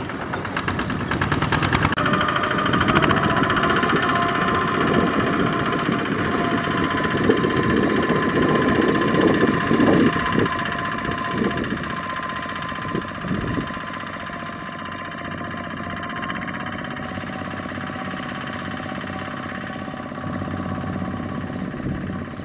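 Single-cylinder diesel engines of two-wheel walking tractors running steadily while pulling loaded trailers. The sound grows fainter a little past halfway as the tractors move off.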